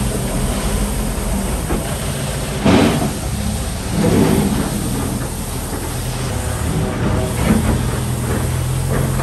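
Manitou telehandler's diesel engine running steadily, with louder scraping noises about two and a half and about four seconds in as its bucket pushes feed across the concrete floor.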